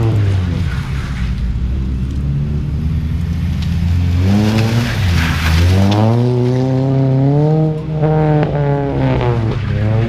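Sedan's engine being driven hard around a cone course, revving up and easing off several times as it accelerates and slows for the turns, with a brief lift-off about eight seconds in.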